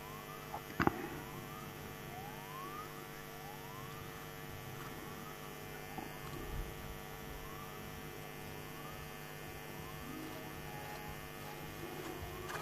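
Steady electrical mains hum on the broadcast sound, with faint short rising squeaks repeating about once a second.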